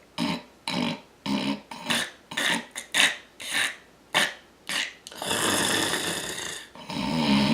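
A man snoring loudly: a quick run of short snorting snores, about two a second, then a long hissing breath and a rattling snore near the end.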